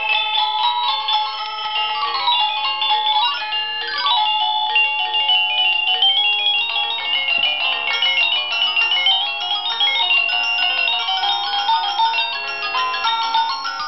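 SadoTech Starpoint wireless doorbell receivers playing a synthesized electronic chime melody, short beeping notes following one another without a break.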